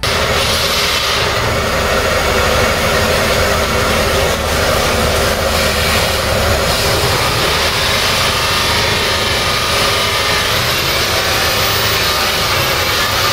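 A 5000-watt diesel generator, a converted marine unit fitted with a radiator, running steadily with a loud, even, train-like noise.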